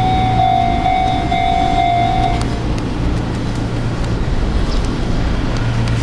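Japanese level-crossing warning bell ringing in a rapid repeating ding, about two strikes a second, cutting off about two and a half seconds in. A steady low rumble runs under it and continues after the bell stops.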